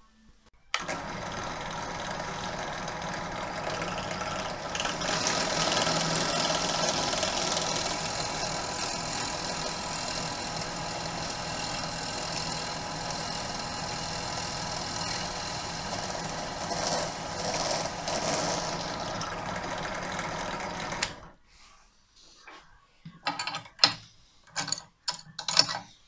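Benchtop drill press motor running steadily while a twist drill bit bores into a small block of wood. It is louder from about 5 to 9 s in and briefly again near 17 s, and cuts off abruptly about 21 s in. A few light clicks and knocks follow near the end.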